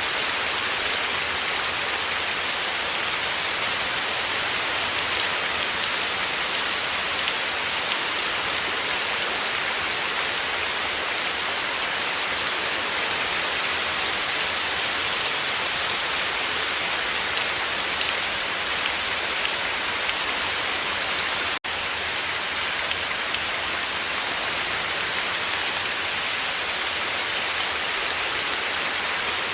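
Heavy rain falling steadily, a dense even hiss of drops, which cuts out for an instant about two-thirds of the way through.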